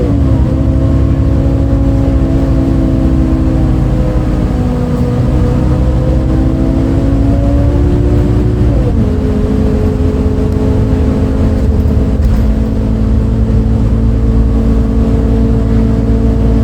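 MAN Lion's City A37 bus's six-cylinder diesel engine (MAN D0836) pulling through the ZF Ecomat automatic gearbox, heard from inside the bus. The engine note drops sharply as the gearbox shifts up right at the start, climbs slowly as the bus gathers speed, and drops again with another upshift about nine seconds in, then holds steady.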